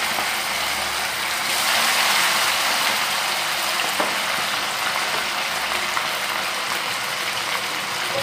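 Masala-coated fish pieces deep-frying in hot oil in a kadai on a medium flame: a steady, dense crackling sizzle.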